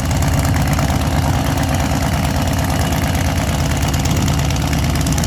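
Funny car's supercharged V8 drag engine idling steadily with a fine, even pulse.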